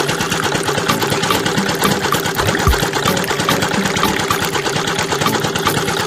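Small engine running steadily with a fast, even ticking, and a single low thump about two and a half seconds in.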